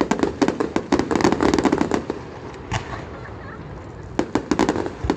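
Aerial fireworks bursting in a rapid string of sharp pops for about two seconds. The pops thin out, then a second short flurry comes about four seconds in.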